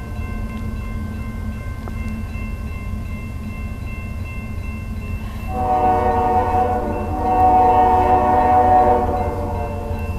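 Distant air horn of an approaching Union Pacific freight train led by an ES44AC locomotive: one long chord sounds about five and a half seconds in and holds for about four seconds, over a steady low rumble.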